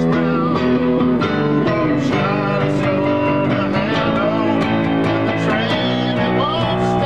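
Live rock band playing, with a keyboard and a voice singing into a microphone over a full, steady accompaniment.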